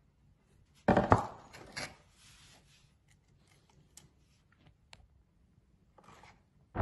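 Handling noises of an air pistol and metal pellet tins being picked up and set down on cardboard and a wooden floor: a clatter of knocks about a second in, another knock and a brief rustle just after, then a few faint taps.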